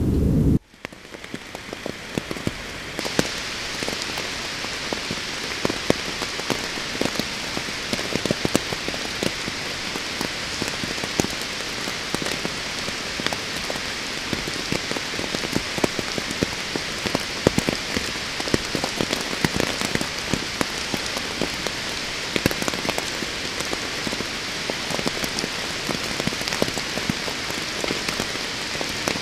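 Heavy rain falling steadily, with many separate drops striking close to the microphone. It fades in after a cut about half a second in and builds over the first few seconds.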